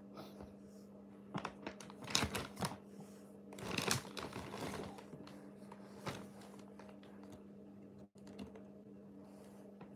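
Clear plastic bag crinkling and rustling as a cat moves and paws inside it, in a few short clusters and one longer rustle about four seconds in, then only scattered clicks. A steady low hum runs underneath.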